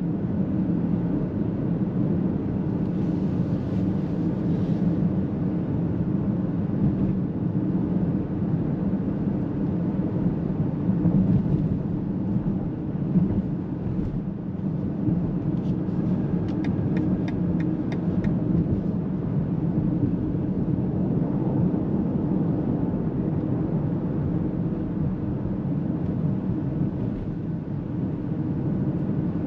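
Cabin noise of a 2023 BMW X7 M60i with its twin-turbo V8 cruising at steady speed: an even low hum of engine and tyres on the road. A quick run of faint ticks comes about halfway through.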